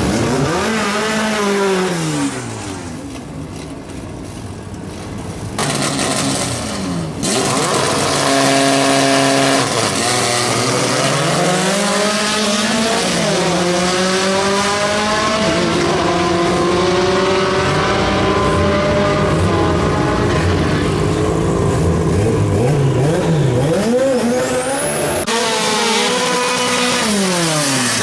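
Drag-racing Volkswagen Gol engines: revving at the start line, then a held steady rev and a hard launch. The engine pitch climbs and drops again and again as the cars accelerate through the gears down the strip. Near the end another car's engine revs up and down.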